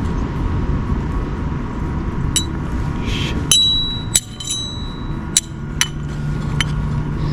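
Metal suspension strut mount plates clinking against each other as they are picked up and set down: several sharp clinks, each with a short ring, starting about two seconds in. A steady low rumble lies underneath.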